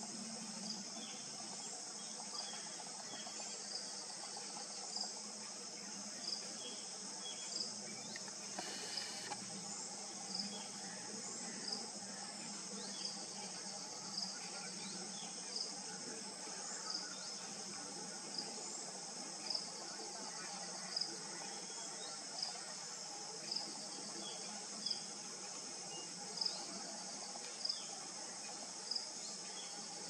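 Steady, high-pitched insect chorus. A short high chirp repeats at an even pace over it, about once every second and a half.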